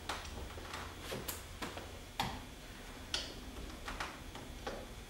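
Irregular light clicks and taps, about nine, as a rivet nut on a hand rivnut tool is worked into a tight drilled hole in the car's rear body panel; the loudest click comes a little over two seconds in.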